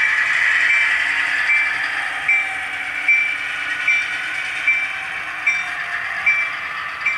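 Model railroad diesel locomotive in BNSF paint running along the layout's track: a steady whirring hiss with a short click repeating about every 0.8 seconds, slowly fading as the locomotive moves away.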